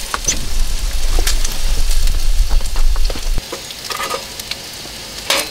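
Low rumble of the camera being handled and repositioned, stopping abruptly a little past three seconds in, over a steady hiss, with a few light clicks and knocks.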